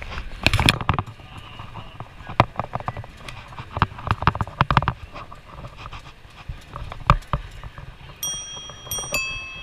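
Sharp clicks and knocks from the handlebar-mounted camera being handled and the pedicab rattling over the street, then near the end the pedicab's handlebar bicycle bell is struck three times, each ding ringing on.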